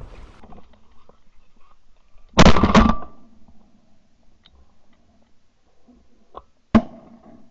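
Two shotgun shots at flying mallards, about four seconds apart: the first a loud blast with a short ringing tail, the second a single sharp crack.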